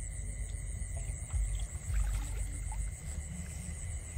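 Night insects chirring steadily in a high, pulsing drone, over an uneven low rumble from the camera being handled and moved.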